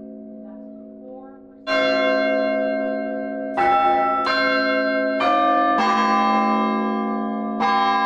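Bath Abbey's church bells being rung, heard from close by inside the bell tower. The hum of an earlier stroke dies away, then about a second and a half in the bells begin striking one after another, six strokes on bells of different pitch, each ringing on under the next.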